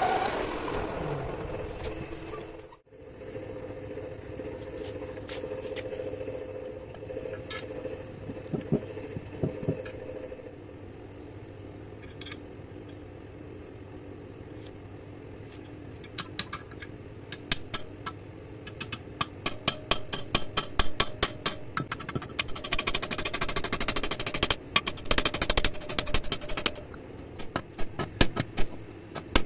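Hammer tapping in quick runs on a used HSS lathe-tool bit, driven like a chisel down the bore of a metal tube clamped in a bench vise to cut a rifling groove. The strikes come in the second half, densest near the end. At the start a metal lathe spins briefly.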